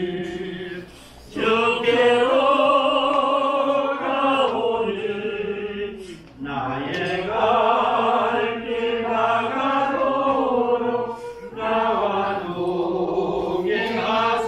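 A congregation of mourners singing a hymn together, in slow, long-held phrases with brief pauses for breath about every five seconds.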